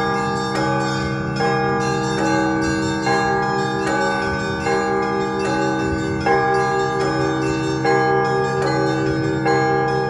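Russian Orthodox church bells in a festive peal (trezvon). Small bells are struck in a fast, continuous patter over a pattern of larger bells striking a little more often than once a second. Under it all runs the steady low hum of the big bells.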